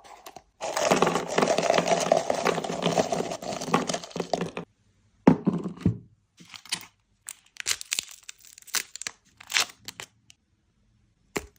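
A sweet's wrapper being torn open and crinkled: about four seconds of continuous tearing, then scattered crinkles and crackles.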